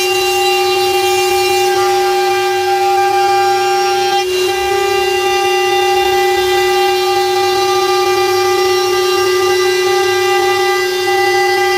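CNC router spindle running at steady speed with a constant high whine while its small end mill routes along the edge of a wooden panel; the whine breaks very briefly about four seconds in.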